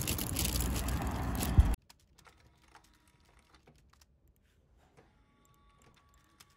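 Loud, steady noise that cuts off abruptly with a thump about two seconds in, followed by a quiet room with faint, scattered clicks of a computer keyboard and mouse.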